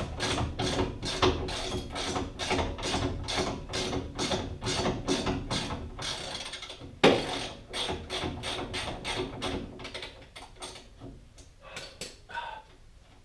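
Hand ratchet wrench clicking in an even rhythm of about four clicks a second, with one sharp knock about seven seconds in; the clicking slows and thins out over the last few seconds.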